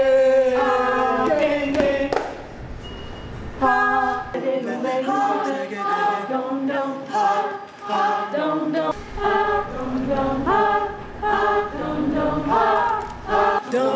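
Group of voices singing a cappella: a long held note, slowly falling, for the first few seconds, then short rhythmic sung syllables.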